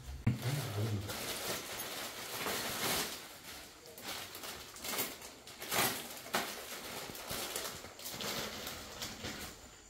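Plastic courier packaging being cut open and a dress pulled out of its plastic bag: irregular crinkling and rustling of plastic, with a sharp click just after the start.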